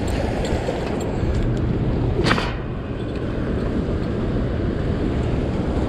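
Steady wind buffeting the microphone over the rush of choppy river water, with one brief sharp sound about two seconds in.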